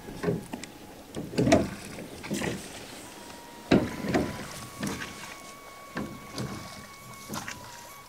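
A wooden rowboat being rowed off: a string of oar strokes, each a splash of the blade in the water with the knock of the oar in its rowlock against the boat's side, the loudest about a second and a half in and near four seconds.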